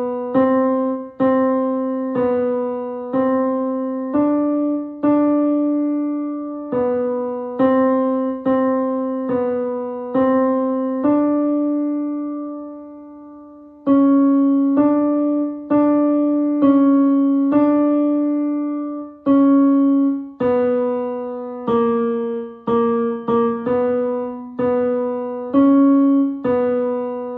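Piano playing a choir's tenor 2 part as a single-line melody, one note at a time with each note left to ring and fade. There is a pause of about two seconds midway before the line resumes.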